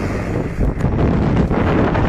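Wind buffeting the microphone, over the faint drone of a homemade chainsaw-powered ski rig's two-stroke engine as it moves away.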